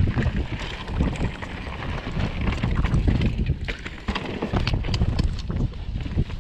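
Mountain bike rolling down a rocky trail: tyres crunching over stone and the bike rattling, with many irregular sharp clicks and knocks over a steady low rumble.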